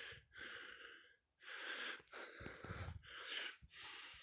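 Heavy breathing close to the microphone: a run of breaths in and out, about one and a half to two a second, short and hoarse.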